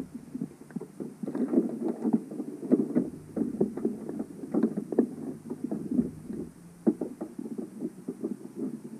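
Muffled underwater sound heard through a camera housing on the seabed: a dense, irregular run of low knocks and crackles, several a second.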